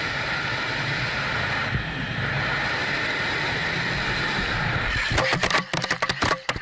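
Wind rush and motorcycle engine noise while riding a sport bike at speed, then about five seconds in a rapid, irregular run of hard knocks as the motorcycle crashes and the camera tumbles across the road.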